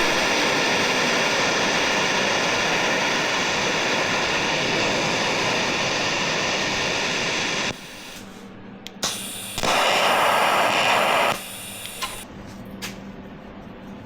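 Electric arc welder crackling and sizzling as steel is welded: one long weld of about eight seconds, then a short tack of under two seconds after a pause.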